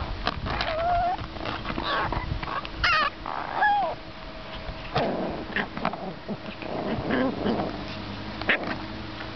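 Seven-week-old American Eskimo puppies whining and yipping in short high calls that slide in pitch, several in the first four seconds, with rougher, noisier sounds after that.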